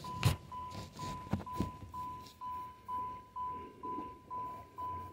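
Warning chime of a 1986 Chevrolet Caprice Classic dinging steadily, one high tone about twice a second, with a few sharp clicks and knocks over it.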